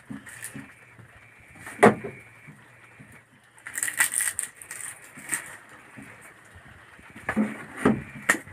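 Fresh leaves crinkling and rustling as they are folded and pressed over the mouths of bamboo tubes to make lids, with a few sharp knocks from handling: a loud one about two seconds in and several near the end.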